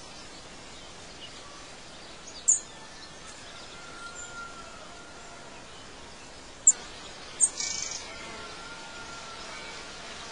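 Outdoor ambience of birds chirping: a few short, sharp, high chirps and some fainter whistled notes over a steady background hiss.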